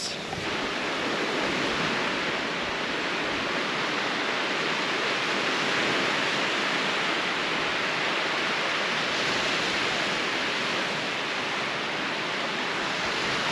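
Steady rushing noise of lake waves breaking on the shore, even in level with no distinct strokes.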